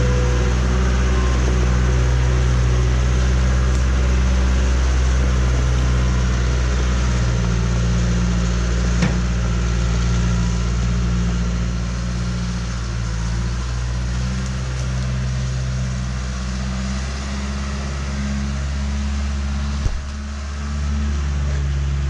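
John Deere 310C backhoe's diesel engine running steadily under work, its pitch and level shifting a little partway through, with a sharp knock about nine seconds in and another near the end.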